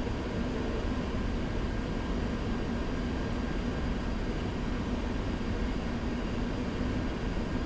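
Steady flight-deck noise of a Boeing 737-700 taxiing with its engines at idle: an even rush of air and engine sound with a constant low hum and a few faint steady tones.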